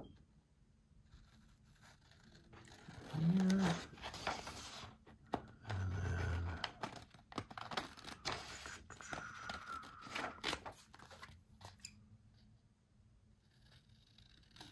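Paper and card being cut with scissors and handled on a craft table: scattered snips, rustles and scrapes, with a brief low pitched sound about three and a half seconds in.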